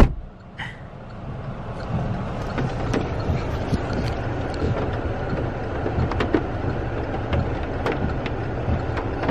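Heavy rain: a steady hiss with scattered drops tapping, over a low rumble, building up about a second and a half in after a sharp click at the start.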